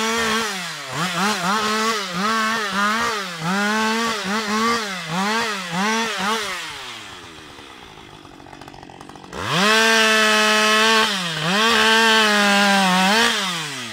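Husqvarna 560XP two-stroke chainsaw limbing a felled tree. The engine is held at full throttle and bogs down briefly about twice a second as it snips through branch after branch. It drops back to idle for a couple of seconds, then revs high again with one more dip near the end.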